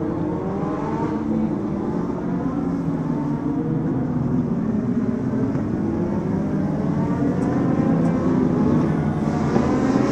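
Legend race car engine running at racing speed, its pitch climbing again and again as it accelerates.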